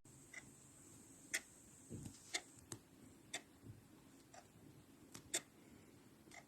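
Faint, irregular light ticks and clicks, about a dozen of them spaced unevenly, over a low background hiss.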